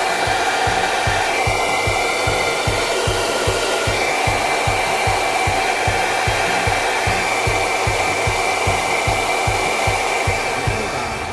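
Gravity-feed air spray gun hissing steadily as it sprays paint, with a faint whistle-like tone in the airflow; the hiss eases off near the end.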